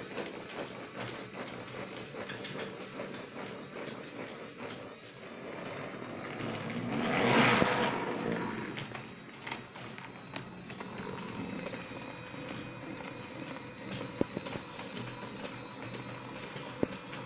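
Small battery toy motor whirring steadily as the toy train runs along the track. A loud rising-and-falling whoosh peaks about halfway through, and a few sharp clicks come near the end.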